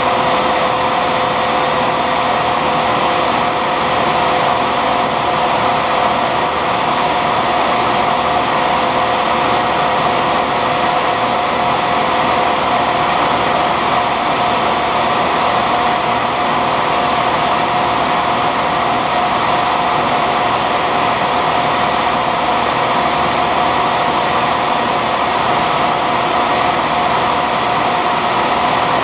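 Shop vac running steadily together with the motor of a Shopsmith lathe spinning a graphite rod, a constant whooshing noise with a steady whine.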